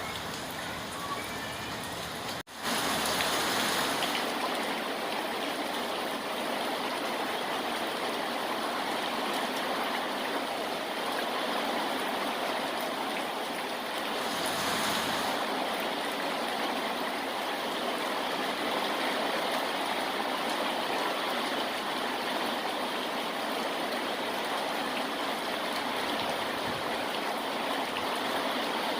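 Steady rushing water noise, even and unbroken. About two and a half seconds in it cuts out for an instant and comes back slightly louder.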